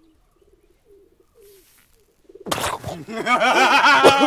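Pigeons cooing softly, then about two and a half seconds in a sudden loud fit of coughing on smoke, with loud laughter over it.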